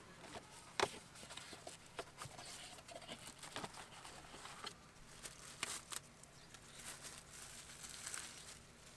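Rustling, crinkling and light clicks of an engine air filter element and its plastic air box being handled during a filter change, with one sharper knock about a second in.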